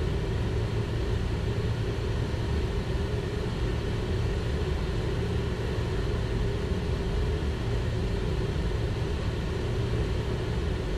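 Steady rumble inside the cockpit of a Learjet 60XR business jet descending on final approach with flaps fully down: airflow and engine noise with a steady hum, unchanging throughout.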